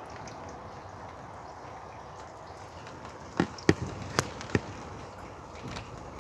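Light drizzling rain and wind as a steady, even hiss. About halfway through comes a quick run of five sharp knocks over about a second, louder than the rain.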